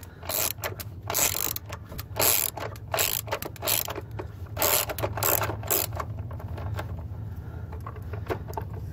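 Socket ratchet clicking in quick runs as the 8mm-headed screw of a battery hold-down is turned out; the clicking thins out after about six seconds. A low steady hum runs underneath.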